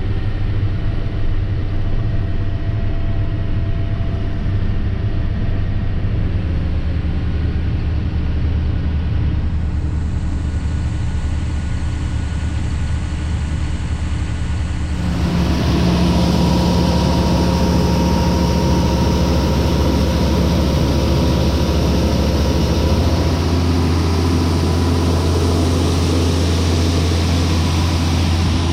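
Heavy diesel engine of farm harvest machinery running steadily with a low hum. About halfway through it becomes louder and fuller.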